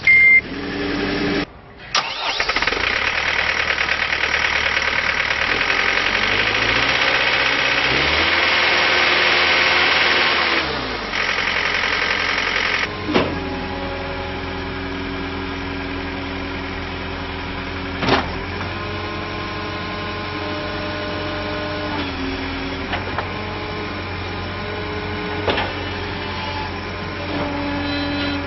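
Diesel engine of a John Deere 315CT skid steer catching about two seconds in and running at higher speed for several seconds, then dropping to a steady idle. A few sharp clunks sound during the idle.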